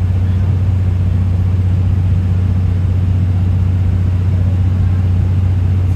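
Steady low diesel drone heard inside a 12-series passenger coach, with an even running noise over it and no change in pitch or level.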